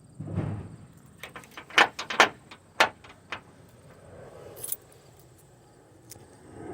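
A quick run of sharp knocks and clanks, about eight in two seconds with the loudest in the middle, followed about a second later by one more knock.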